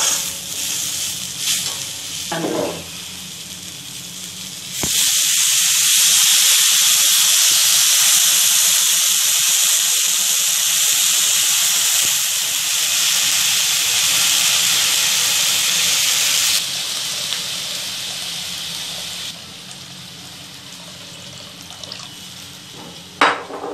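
Onion, potato, mangodi and tomato sizzling in a hot kadhai as a spatula stirs and scrapes. About five seconds in, water poured into the hot pan sets off a loud steaming hiss that lasts about ten seconds and then drops to a quieter sizzle.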